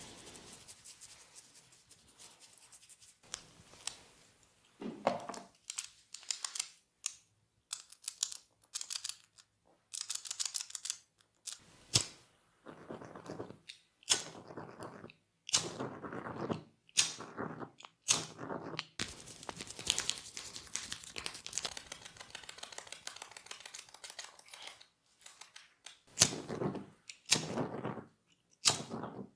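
Close-up sounds of a barber's hands working on a client's head: rubbing and brushing on hair and skin, broken by many sharp clicks and slaps.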